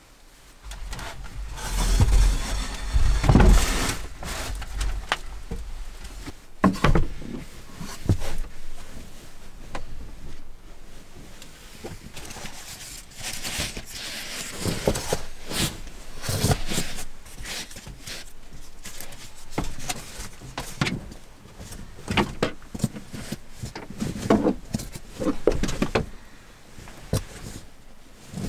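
Bedding being handled: a folding egg-crate foam sleeping mat is opened out and a sleeping bag spread over it, giving bursts of rustling with scattered knocks, thumps and clicks. The loudest burst is about two to four seconds in.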